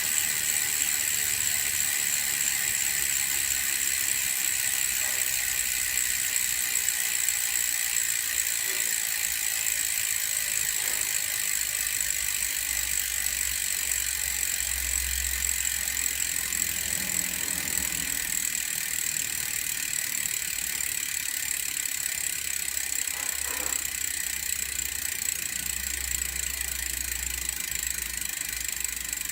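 Vuelta Carbon Pro V2 road wheel's freehub buzzing with rapid pawl clicks as the wheel freewheels, a steady high-pitched ratcheting that slowly gets quieter.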